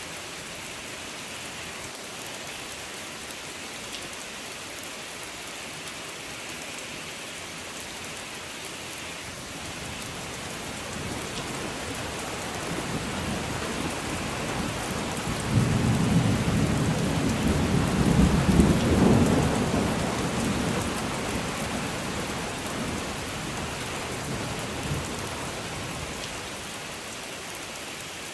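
Steady rain with a long rumble of thunder that builds from about ten seconds in, is loudest around the middle, and slowly fades away.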